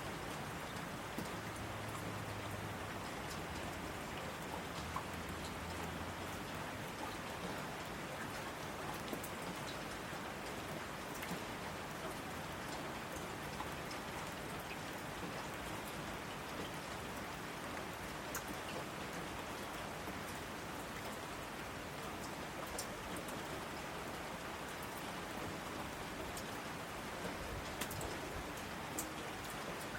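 Steady rain falling, a continuous hiss with scattered sharp drop impacts on a surface.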